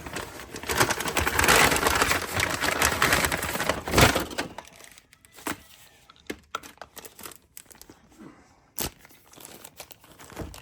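Rustling and crinkling as something is handled and crumpled, with a sharp knock about four seconds in, then scattered small clicks and taps.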